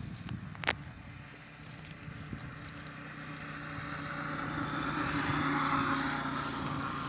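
A motor vehicle's engine passing by, growing louder toward a peak about six seconds in and then starting to fade. A sharp click sounds near the start.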